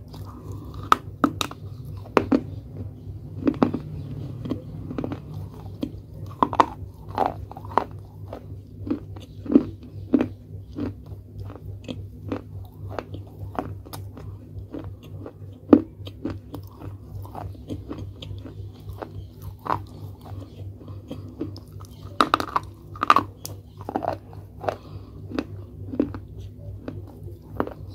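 Close-up crunching and chewing of brittle pieces of baked clay pot being bitten off and eaten, with irregular sharp crunches a few times a second and louder bursts of crunching around a quarter of the way in and near the end.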